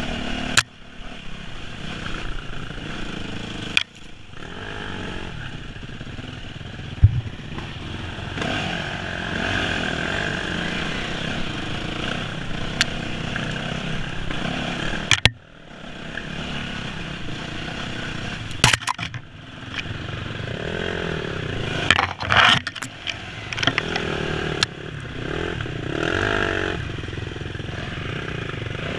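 Enduro dirt bike engine running and revving up and down under changing throttle on a rough trail. Several sharp knocks and a few brief drops in the sound break in along the way.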